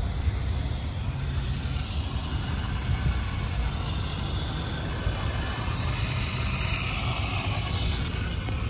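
Steady hiss of water and air rushing through a brass backflow preventer and new copper line as it is charged with pressure, over a low rumble.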